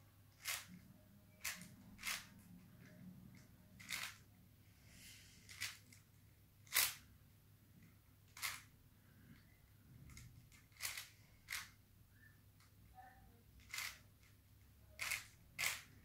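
Stickerless plastic 5x5 Rubik's cube being turned by hand, its layers snapping into place with about a dozen sharp clacks at uneven intervals, roughly one a second.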